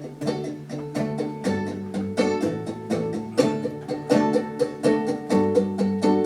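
Ukulele playing a song's instrumental intro: a steady rhythm of plucked chords.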